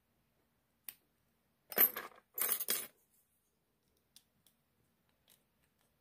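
Metal lockpicking tools and a padlock clinking: one light click about a second in, a short burst of jingling metal clatter around two seconds, then a few faint ticks.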